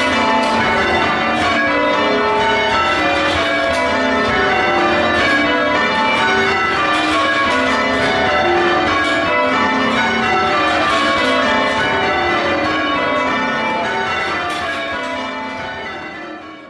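Church tower bells rung in changes: a steady peal of many bells struck one after another in repeating falling sequences, fading out near the end.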